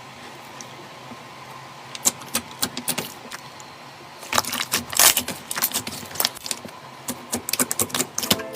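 Slime being pressed and worked by hand, giving crisp crackling clicks. They are sparse at first from about two seconds in, then come thick and fast from about four seconds in.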